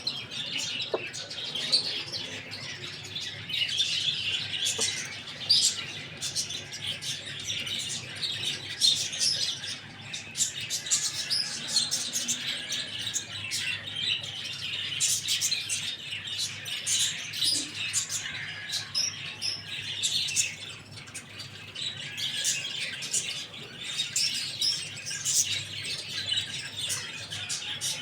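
A flock of small birds chirping and twittering without a break, a dense chatter of many short, high calls overlapping one another.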